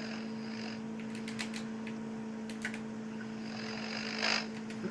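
Scattered computer keyboard clicks over a steady electrical hum, with a short hiss of noise near the end.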